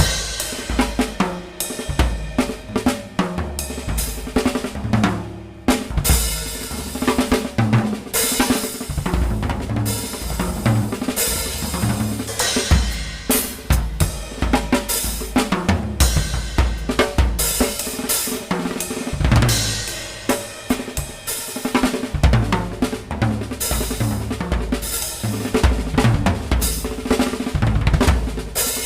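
Drum kit being played in a busy, continuous pattern of kick drum, snare and cymbal hits, with a brief let-up about five seconds in.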